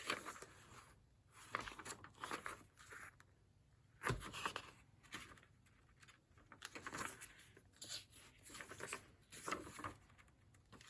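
Pages of a thin old book being turned and handled: faint, scattered paper rustles and crinkles, with one light knock about four seconds in.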